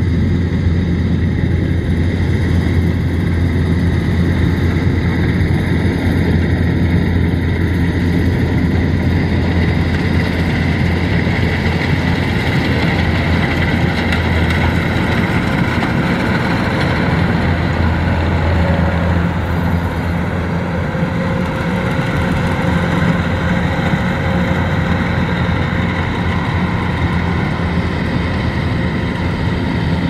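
Kubota DC-105X combine harvester cutting rice, its engine and machinery running with a loud, steady drone. It gets a little quieter about twenty seconds in.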